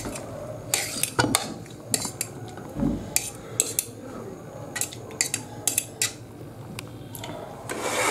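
Metal fork tapping and scraping against a serving dish as noodles are served out onto a plate, in scattered, irregular clinks.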